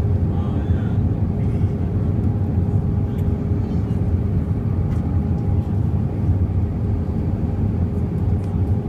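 Cabin noise of an Airbus A320 airliner descending on approach, heard from a window seat over the wing: a steady low rumble of engines and airflow with a constant droning tone in it.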